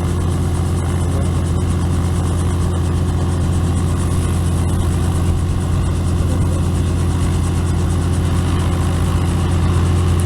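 Helicopter running steadily, a loud low hum of constant pitch with a faint rapid flutter over it.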